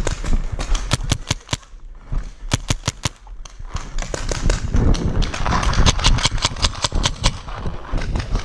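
Paintball markers firing: bursts of sharp pops in quick succession, with the longest, densest run of shots in the second half, over the rumble of handling and running.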